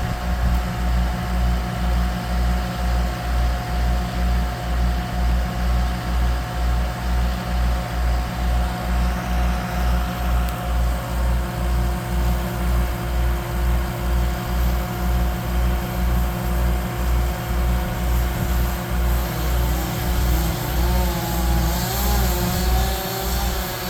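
A large engine running steadily, with a deep throb pulsing about twice a second and a steady higher hum over it. A wavering whine that rises and falls joins near the end.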